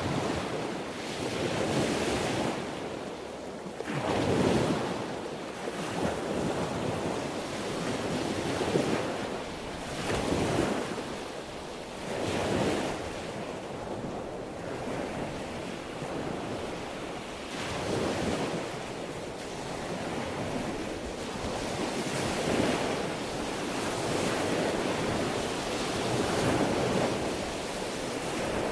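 Sea waves washing onto a shore, each wave swelling and breaking every couple of seconds in a continuous rolling surf, with some wind noise on the microphone.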